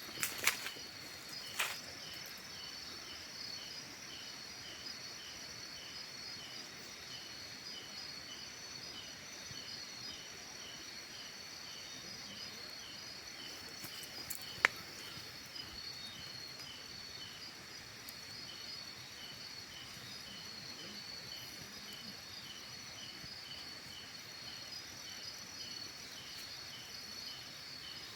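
Insects calling: a steady high-pitched trill of crickets with a second, lower chirp repeating about twice a second. A single sharp click about halfway through.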